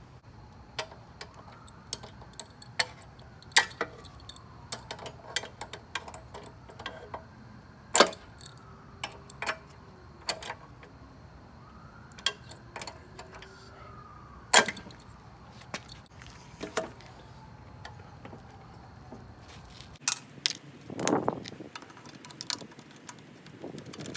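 Irregular metallic clicks and clinks of a wrench on a new spark plug being screwed into a lawnmower engine, with a couple of sharper clanks along the way.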